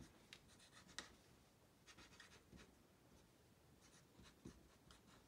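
Faint scratching and squeaking of a felt-tip marker writing letters on a white board, in short irregular strokes.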